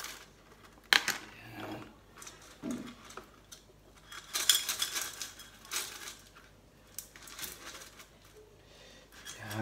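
Metal teaspoon and small stones clinking, tapping and scraping against a glass terrarium bowl, in irregular sharp clicks and short rattles.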